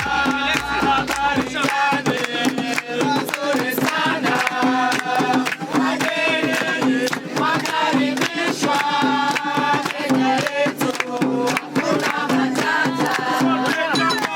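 Background music: singing over a steady percussion beat with a pulsing bass note.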